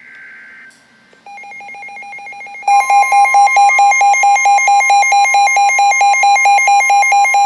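The tail of a weather radio alert's digital data burst, then a weather radio receiver's rapid electronic alarm beeping starts about a second in. About two and a half seconds in, the loud, steady 1050 Hz NOAA Weather Radio warning alarm tone joins the beeping.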